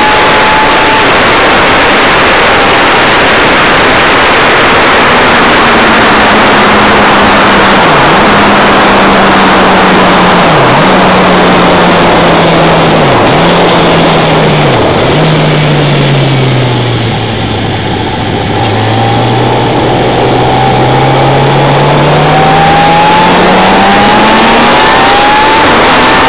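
Onboard sound of a track car at speed: heavy wind rush on the microphone over an engine note that dips briefly several times, falls away as the car slows about two-thirds of the way through, then rises again as it accelerates hard.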